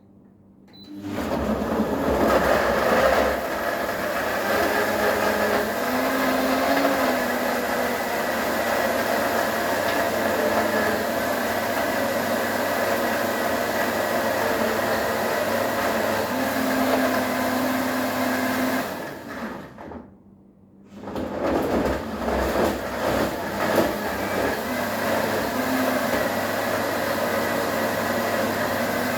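Blender motor starting about a second in and running steadily, blending frozen fruit and ice cubes with orange juice. It stops for about a second around two-thirds of the way through, then starts again.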